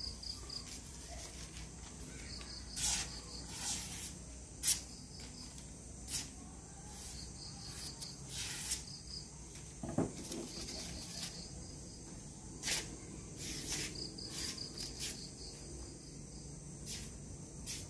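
Crickets chirping in repeated pulsing trills, with a series of short sharp rustles and swishes, the loudest a little under five seconds in, as thin plastic sheets are handled and sliced with a kukri blade.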